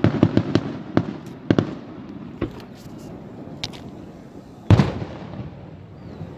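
Fireworks going off: a quick run of bangs in the first second, more at about one and a half and two and a half seconds, and the loudest bang a little before five seconds, with a rumbling echo between the bursts.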